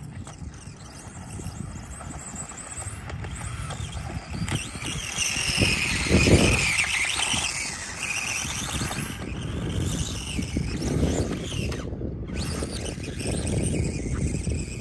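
SkyRC SR5 quarter-scale RC dirt bike's electric motor whining high, rising and falling in pitch as the bike speeds up and slows on a dirt track, loudest around six seconds in. Low wind rumble on the microphone runs underneath.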